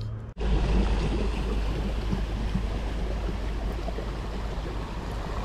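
A motor cruiser passing on the river: the rushing wash of its wake with a steady low rumble underneath, starting suddenly about a third of a second in.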